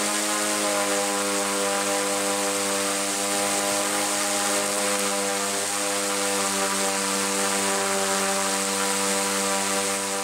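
Small electric motor and propeller of a home-made RC air sled running at a steady speed, giving an even buzzing hum with a hiss of air.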